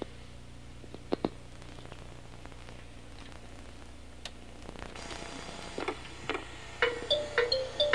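Faint steady hum and hiss of an old camcorder videotape, with two sharp clicks about a second in. Near the end a bright, rhythmic tune starts up.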